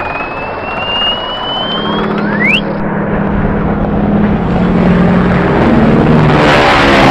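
Roller coaster ride noise with cartoon sound effects laid over it: a long rising whistle, then a quick rising slide-whistle sweep about two seconds in, low held tones, and a fast falling run of pitches near the end as the ride noise grows louder.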